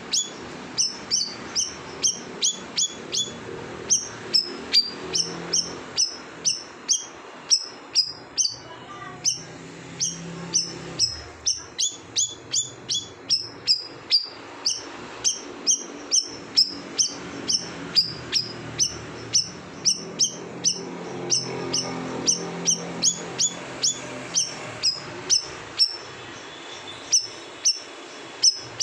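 Cucak rawis (a leafbird kept as a songbird) singing vigorously: a rapid, unbroken run of short, sharp, high downward-sweeping notes, about two a second.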